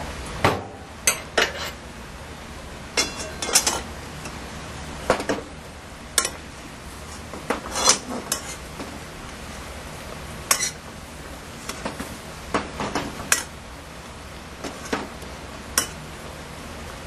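Metal spoon clinking and scraping against the side of a metal pot while it ladles simmering soy broth over the fish. The clinks are irregular, one or two a second, over a steady hiss.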